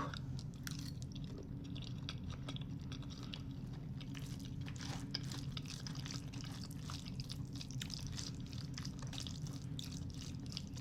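Quiet chewing with small wet mouth clicks scattered throughout, over a steady low background hum.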